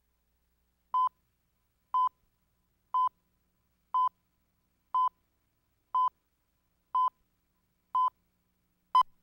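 Broadcast countdown leader beeps: a short, steady high beep once a second, nine in all, the last one shorter and sharper.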